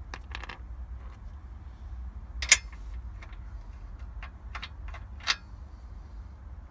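Steel socket clicking and tapping against metal on the car's underside: about ten short sharp clicks, the loudest one about two and a half seconds in and another louder one about five seconds in.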